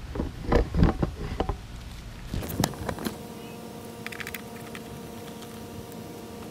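A run of knocks and clicks, loudest in the first second and a half, with a few sharper clicks later. From about halfway a faint steady hum with an even pitch sets in.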